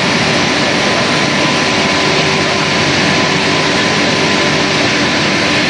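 Steady, loud drone of factory machinery around double-chamber vacuum packing machines, with a thin steady whine running through it.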